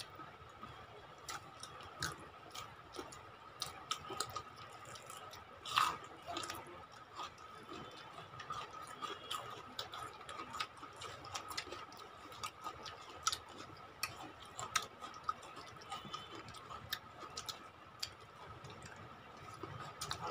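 People eating rice and chicken curry with their hands: irregular wet mouth clicks, lip smacks and chewing, the strongest click about six seconds in, over a faint steady high-pitched hum.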